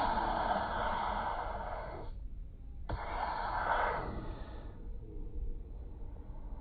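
Two long breathy hisses, the first lasting about two seconds and the second starting about three seconds in and fading away.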